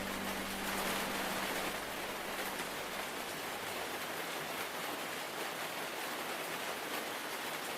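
Steady hiss of heavy rain falling on foliage, with no distinct separate drops. A held piano note dies away during the first second or two.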